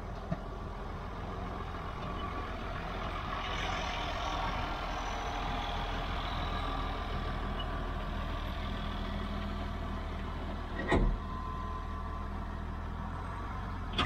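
A farm tractor's engine running steadily as it pulls a loaded gravity wagon past, growing louder over the first few seconds as it approaches. A sharp knock about eleven seconds in, and another at the very end.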